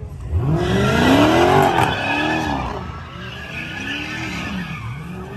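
A car doing donuts or a burnout: its engine revs up and falls back several times, and the tyres squeal and skid on the pavement throughout. The first rev, about a second in, is the loudest.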